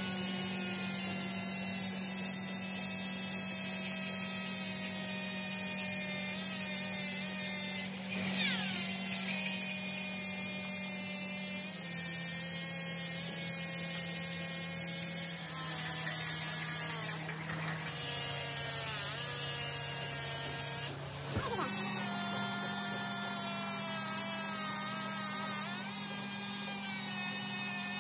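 Electric die grinder whining steadily as its abrasive wheel grinds a steel shaft turning in a lathe. The pitch sags in a few steps through the middle as the wheel is pressed in, then rises again near the end, with a couple of brief dips where the grinder eases off.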